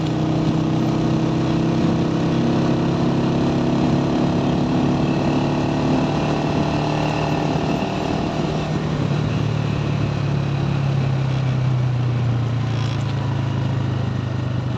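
Motorcycle engine running while riding along, steady in loudness, its pitch sinking slightly over the first half as the throttle eases, then holding steady.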